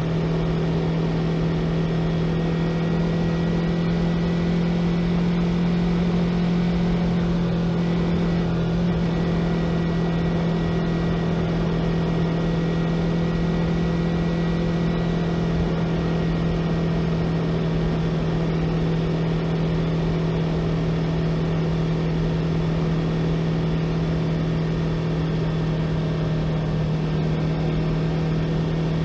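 Yamaha YZF-R3's parallel-twin engine running at a steady cruise, holding an even pitch with only a slight shift in note about eight seconds in, over a constant rush of riding noise.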